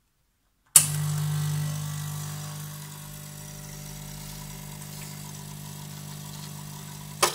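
Brasilia Club espresso machine's vibratory pump switched on with a click, running with a steady hum while it pushes water against a pressure gauge fitted to the group head. It is louder for the first two seconds, then settles quieter. It is switched off with a click near the end. The gauge reads about 14 bar, well above the 8–10 bar wanted for espresso, because the machine has no pressure-regulating valve.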